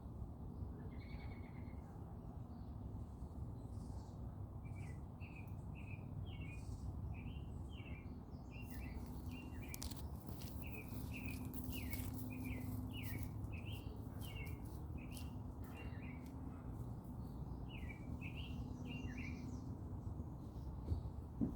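Songbird chirping: a long run of short, quick notes, a little more than one a second, starting about five seconds in and stopping near the end, over a steady low outdoor rumble.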